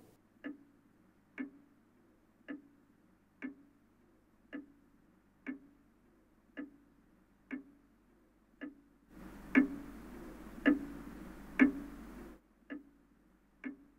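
Mechanical clock ticking steadily, about one tick a second. For a few seconds near the end the ticks are louder, over a faint hiss.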